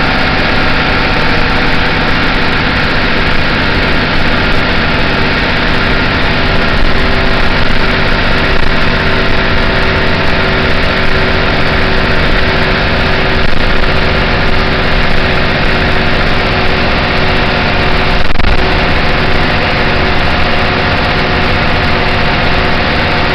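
City bus engine running at a steady pitch, heard loud inside the passenger cabin because the engine compartment hatch is open. The drone holds even throughout, as at a constant cruising speed.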